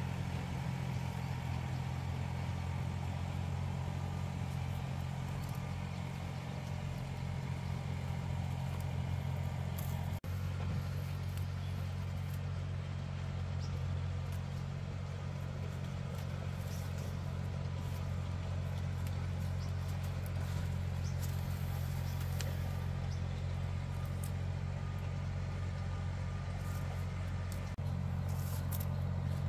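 A motor or engine running steadily with a low, even hum, briefly cutting out for an instant about ten seconds in.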